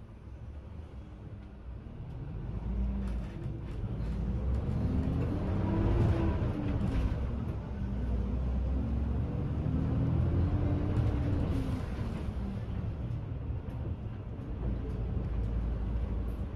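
City bus running, heard from inside its cabin: a low rumble of engine and road with a whine that rises and falls twice as the bus speeds up and slows.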